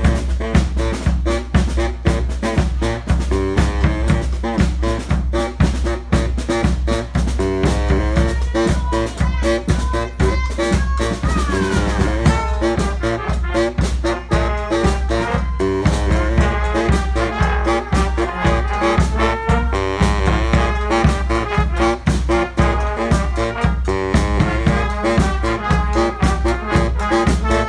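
Brass band playing an upbeat swing/jazz street-band tune, horns over drums keeping a steady beat, with a falling horn slide about eleven seconds in.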